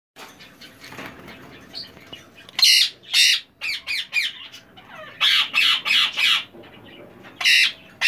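Indian ringneck parakeets squawking in short runs of loud calls: two about three seconds in, a quick string of shorter calls just after, four more around five to six seconds, and another near the end.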